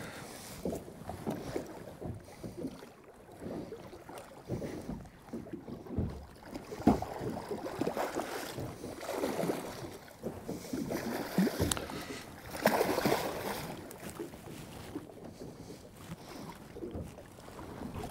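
Water slapping and knocking against the hull of a small boat drifting on a choppy sea, with wind buffeting the microphone. Louder slaps come about seven seconds in and again around thirteen seconds.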